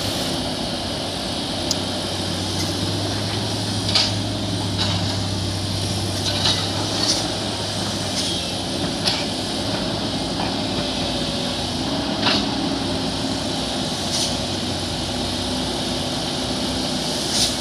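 Heavy construction machinery running steadily, a diesel drone whose low hum shifts in pitch about halfway through, with a few short metallic clanks.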